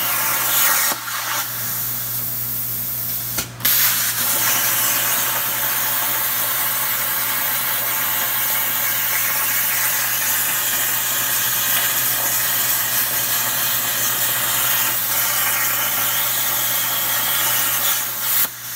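CNC plasma table cutting rusty steel plate: the plasma torch's steady, loud hiss of air and arc. It breaks off for a moment about three and a half seconds in, then carries on.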